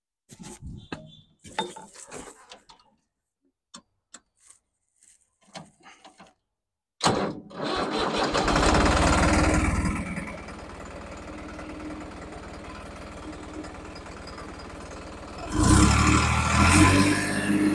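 New Holland 3630 tractor's three-cylinder diesel engine, just fitted with a modified turbo and fuel-injection pump, starting up about seven seconds in after a few faint knocks and rustles. It runs loud for a couple of seconds, settles to a steady idle, and is revved up again near the end.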